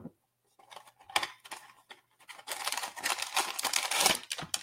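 A vinyl-toy blind box being opened: a few light knocks of handling, then from about halfway a dense crinkling of its packaging that keeps going.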